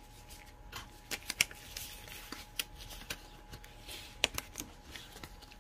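Scattered light clicks and taps of kitchen handling at irregular intervals, a few louder than the rest, over a faint steady hum.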